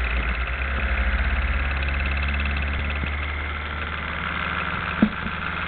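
Small DIY magnet motor running: a rotor with neodymium magnet pairs spinning past two pulsed toroidal coils, giving a steady buzzing hum with a fast pulsing rhythm. A single sharp click about five seconds in.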